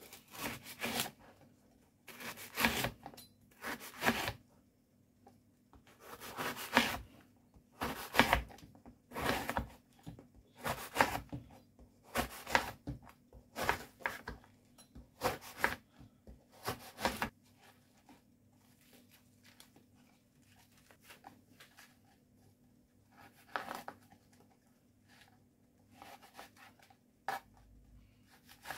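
A knife cutting through the crust of a day-old baguette on a plastic cutting board, one cut about every second and a half for a dozen or so slices. After that, fainter, scattered cuts as the slices are trimmed into shapes.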